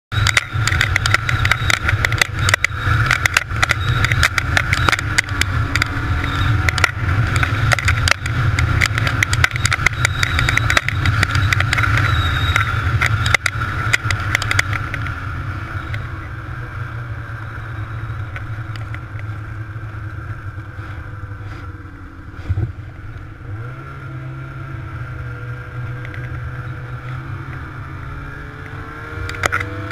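Snowmobile engine running under way, with a dense run of knocks and rattles over roughly the first fifteen seconds as the sled rides over bumpy snow. After that it settles into a smoother, quieter drone, with the revs rising a little later and again near the end.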